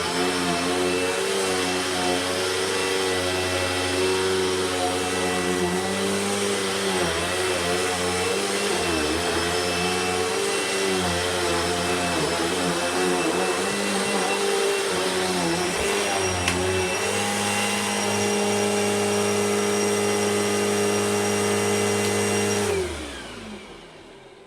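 Royal ProSeries Quick Rewind vacuum cleaner running, its motor whine wavering in pitch, then holding steadier. Near the end it is switched off and the motor spins down with a falling whine.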